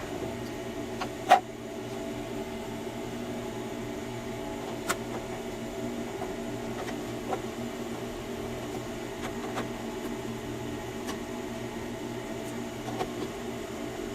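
Scattered sharp metallic clicks and ticks from a wrench backing out screws on a gas furnace's burner assembly, the loudest about a second in. Under them runs a steady mechanical hum.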